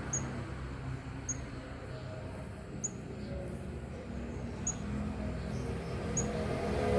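A young brown-throated sunbird gives five very short, high chirps, irregularly spaced about one to two seconds apart, over a low steady hum.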